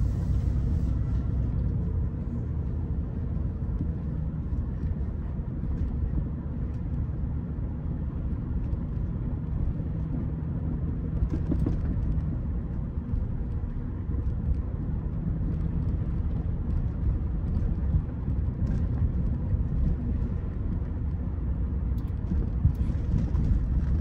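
Rolls-Royce Silver Spirit on the move: a steady low rumble of engine and road noise.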